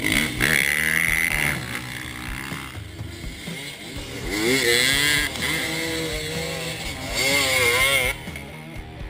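Motocross bikes revving hard and accelerating away one after another, in three loud surges: near the start, about four and a half seconds in, and about seven seconds in. The engine pitch climbs and dips as each one pulls away.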